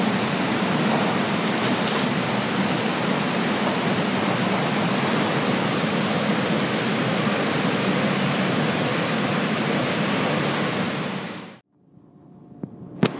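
Ashross RUMig rail car unloader handling coal: a loud, steady rushing noise of the running conveyor system and coal moving through it. It cuts off suddenly near the end, followed by a moment of near silence and a single sharp click.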